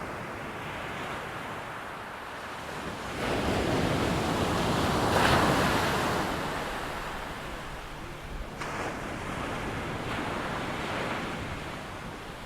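Ocean surf breaking on a beach: a larger wave builds about three seconds in, crashes and washes out, then a smaller one follows.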